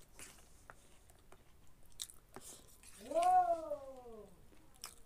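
A cat meows once about three seconds in: one drawn-out call that rises briefly and then falls in pitch. Around it are quiet chewing and light clicks of a plastic spoon.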